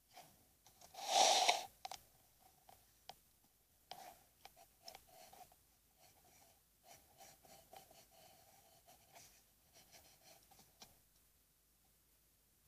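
Graphite pencil scratching across paper in a run of drawing strokes that stops about eleven seconds in. About a second in there is a brief, louder rush of noise.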